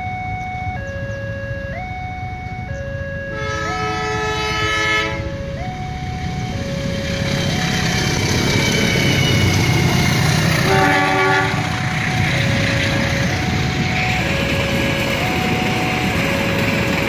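Railway level-crossing warning alarm sounding an alternating two-tone signal, changing pitch about once a second. A train horn blows one long blast about three seconds in and a short one around eleven seconds in, and the passing train's rumble grows louder from midway.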